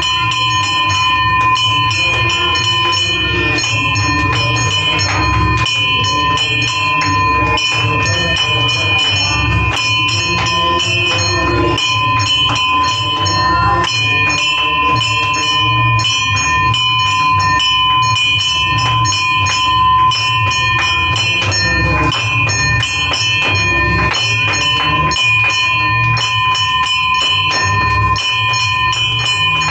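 A puja hand bell (ghanti) rung continuously for the aarti, its ringing tones held steady under rapid repeated strikes, over a rhythmic low beat.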